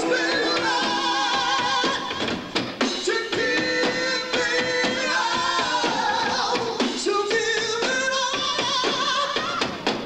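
Rock band playing live, with drums and electric bass: held, wavering melody lines over a steady run of drum hits.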